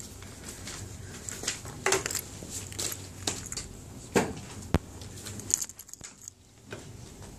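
Scattered light knocks, clicks and rustles of handling at a desk, with a sharp click about three-quarters of the way through, over a low room background.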